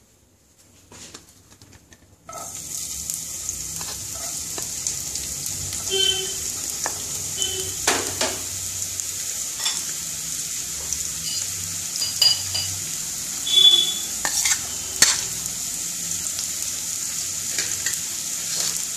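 Chopped onion hitting hot refined vegetable oil in a non-stick kadai, setting off a steady sizzle about two seconds in. The frying is stirred, with occasional clicks and knocks against the pan.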